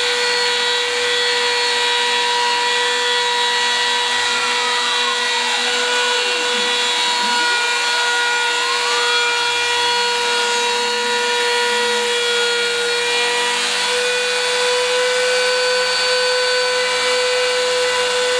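Porter-Cable router motor on a CNC router running at full speed with a steady high whine, its end mill cutting a slot through thin sheet aluminum with a hiss. About halfway through, a fainter whine dips in pitch and climbs back.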